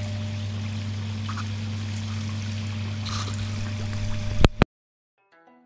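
Water splashing steadily from the filter return into a koi pond, over a constant low hum. Near the end come two sharp knocks, the sound cuts off suddenly, and plucked music begins.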